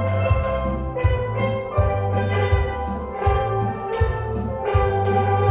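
An amateur steel pan ensemble playing a tune together, many pans struck in a regular rhythm with their notes ringing, over a low bass line.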